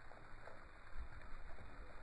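Thunderstorm ambience: a steady hiss with an uneven low rumble underneath.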